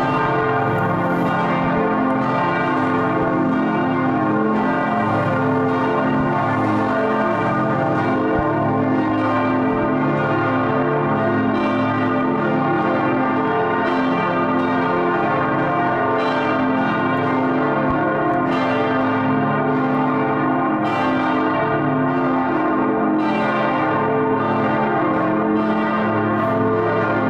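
Partial peal of St. Jacobi's Rincker-cast church bells in Hamburg: several swinging bells striking in overlapping succession, ringing in the Sunday service. The sound is a continuous, dense ringing.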